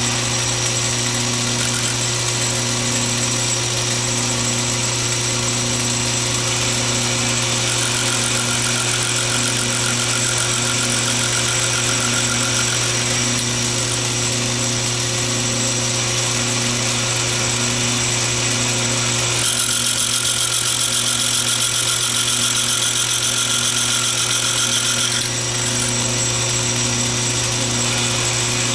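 Atlas 618 bench lathe running steadily: motor and belt-drive hum with a regular beat about once a second. About two-thirds of the way through, a hiss from the carbide tool cutting the spinning brass part joins in for several seconds and stops, then starts again at the very end.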